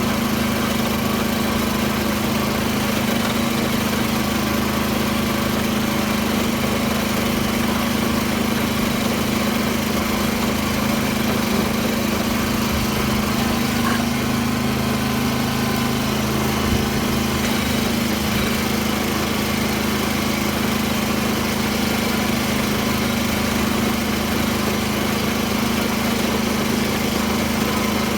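Small farm tractor's engine running steadily under load while tilling the field, with a constant hum. One brief knock comes about two-thirds of the way through.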